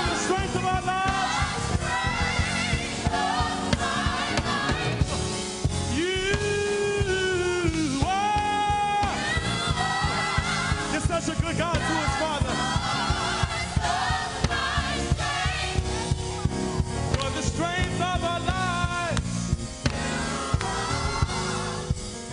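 Gospel choir singing in parts over a steady beat, with long held chords about six to nine seconds in.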